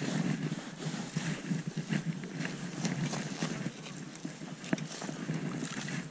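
Wind buffeting the microphone over rustling dry stubble, with a few sharp knocks as a plug of turf is dug out with a hand digging tool over a detector signal.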